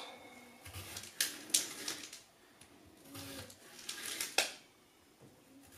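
Kitchen knife slicing bell pepper into strips on a plastic cutting mat: a few separate short chops as the blade cuts through and taps the mat.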